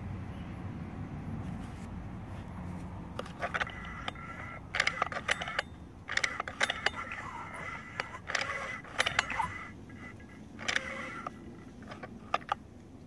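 Light metallic jingling and clinking in several short bursts, with small metal parts being handled, over a low steady background rumble.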